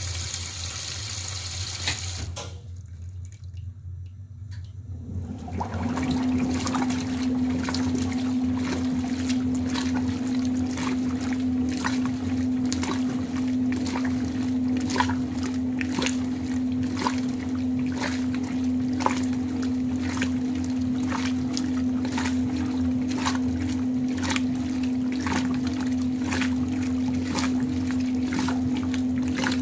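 Maytag standard-capacity top-load washer agitating a load of heavy bath towels with an Easy Spiralator agitator set to about 62 strokes a minute. A steady motor hum comes in about five seconds in, and water sloshes through the towels with each agitator stroke, about once a second. A hiss at the very start stops after about two seconds.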